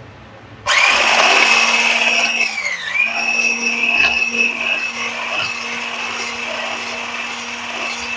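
Electric hand blender with a whisk attachment switching on about a second in and running with a steady high whine, whipping chilled cream. Its pitch dips briefly a couple of seconds later and then recovers.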